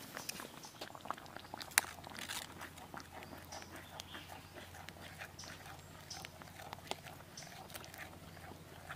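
Vegetable stew bubbling in a steel pan on a portable wood-burning camp stove, with a spatula stirring and scraping the pan. Scattered small clicks and crackles throughout, with one sharper click about two seconds in.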